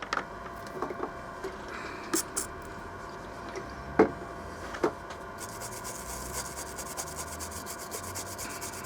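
Scrubbing a circuit board clean with isopropyl alcohol: a few light knocks and clicks, then from about halfway through a fast, even run of rubbing strokes.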